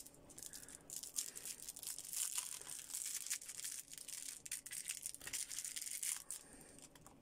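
Faint handling noise: many small clicks and crackly rustles as a metal vape pen body and its clear plastic tank are turned over and handled in the fingers.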